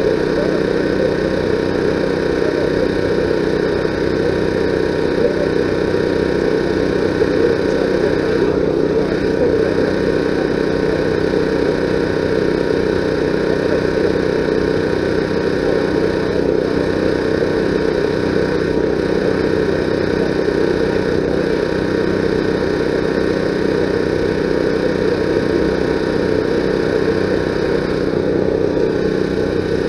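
A steady engine-like drone holding a constant level, with a fixed hum.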